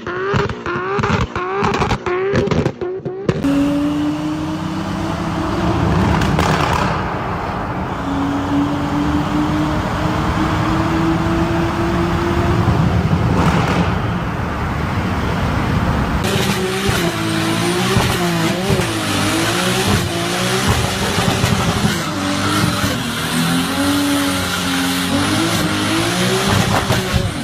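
Nissan Skyline GT-R R34's twin-turbo straight-six revving in quick repeated blips, then held at high revs while the tyres squeal through burnouts.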